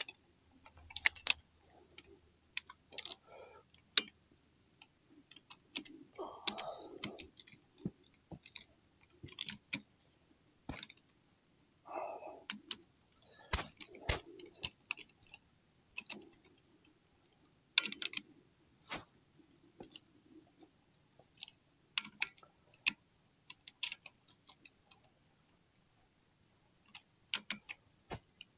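Irregular sharp clicks and light metal clinks of hand tools working the spring bolts of a motorcycle clutch, with a few brief handling rustles and quiet gaps between.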